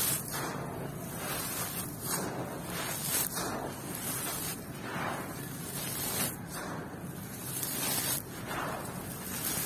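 Handfuls of gritty red dirt and small pebbles poured and crumbled onto a floor: a crunchy, hissing patter of grit landing, swelling in repeated pours about once a second.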